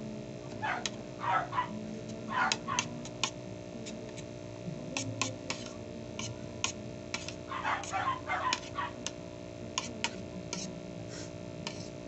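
A metal spoon clicking and scraping against a ceramic plate while eating porridge, with a few clusters of short squeaky sounds about a second in, around two and a half seconds in and near eight seconds. A steady low hum runs underneath.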